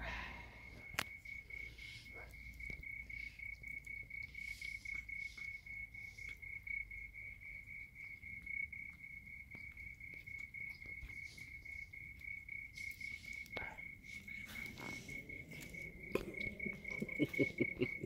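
A cricket trilling steadily, one unbroken fast-pulsing note, with soft scattered clicks and taps mixed in.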